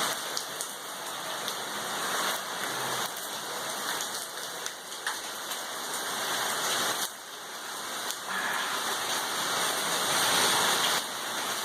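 Heavy storm rain pouring down, a dense hiss with scattered drop ticks that swells and eases, dipping briefly about seven seconds in.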